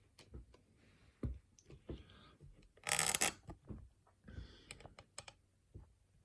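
Small sharp clicks and taps of a padlock and lock-picking tools being handled, with one louder, brief scraping rustle about three seconds in.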